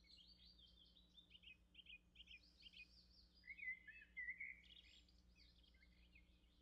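Faint chirping of small birds, many short high chirps in quick runs, over a faint steady low hum.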